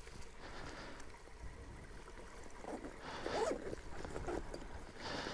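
A small forest stream trickling faintly, with a brief scuffling sound about three seconds in.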